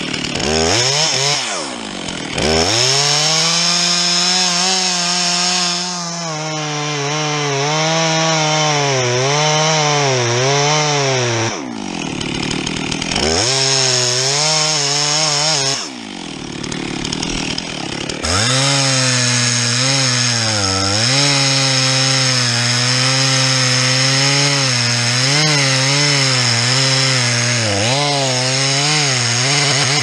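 Stihl MS 362 two-stroke chainsaw with a 50 cm bar sawing into a spruce trunk at full throttle, the engine pitch dropping and wavering under load through long cuts. It revs up at the start and twice more, briefly and higher-pitched, when the bar comes free of the wood.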